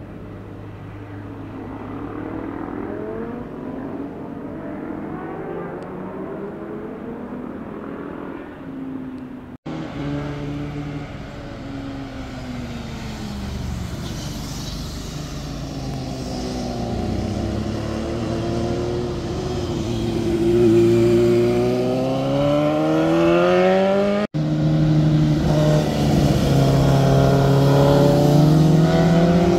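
Motorcycle engines passing through a bend one after another, the pitch rising and falling as they rev, shift and go by. The sound is broken by abrupt cuts between clips, about ten seconds in and again near the end, and it is loudest in the last third.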